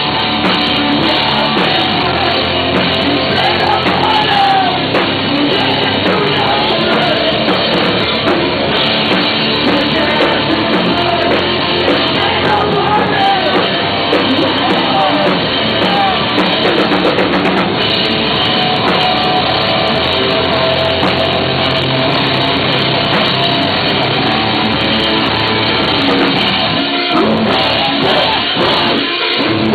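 Rock band playing a song with a singer's voice over the band, loud and continuous.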